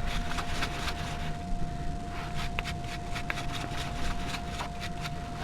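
Soft wire brush scrubbed by hand over rusty brake parts: quick scratchy strokes, dense for about the first second, then sparser.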